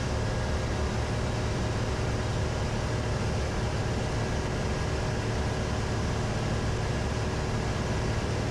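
Steady drone of a Cessna 182's piston engine and propeller in cruise, heard inside the cabin: an even rush of noise over a constant low hum, with no change in level.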